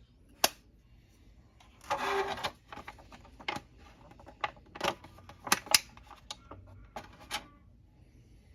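Earbud packaging and small plastic parts handled by hand: a sharp click, a rustle of about half a second, then a string of irregular clicks and taps.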